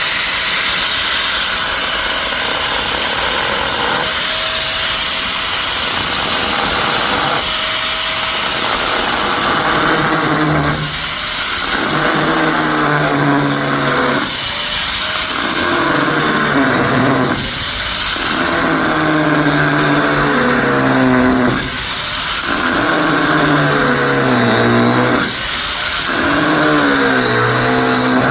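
Electric drill boring into granite. The motor runs steadily, and its whine sags and recovers in cycles of about three to four seconds as the bit is pressed in and eased off.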